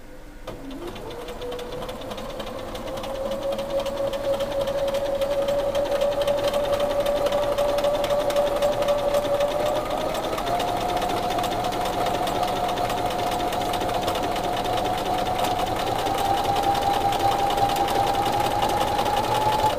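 Bernina Aurora 440 QE sewing machine stitching a straight seam through fabric: fast, even needle clatter over a motor whine that rises in pitch as it starts, steps higher about halfway and again near the end, then stops suddenly.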